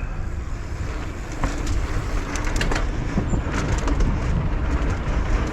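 Downhill mountain bike running fast over a paved urban course, heard from the rider's camera: a steady low rumble of tyres on hard ground, with scattered clicks and rattles from the bike.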